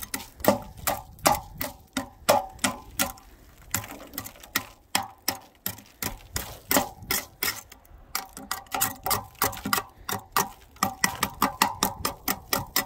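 A metal ruler scraping and knocking ice off a satellite dish's metal support arm in quick repeated strokes, about three a second, with a slight metallic ring.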